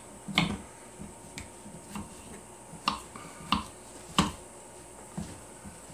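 Old Hickory kitchen knife cutting potatoes into cubes on a maple cutting board: about seven sharp knocks of the blade on the wood, unevenly spaced.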